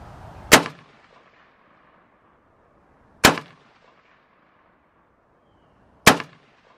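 Three single shots from a PSA AK-47 GF3 semi-automatic rifle (7.62×39mm), fired about three seconds apart, each a sharp crack with a short echoing tail. They make up a three-shot group fired to check the zero after the rifle was struck with a water bottle.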